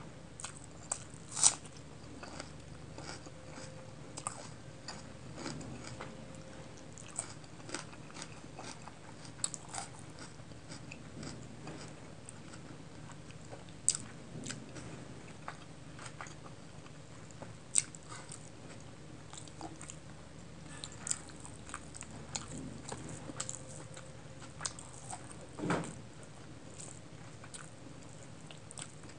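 Close-miked eating by hand: crisp bites into raw onion and chewing, with short sharp crunches scattered throughout, the loudest about a second and a half in.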